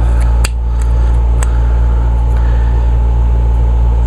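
Steady low hum of a room air conditioner running, with a couple of light clicks as a wrench works a stiff carburetor bowl bolt.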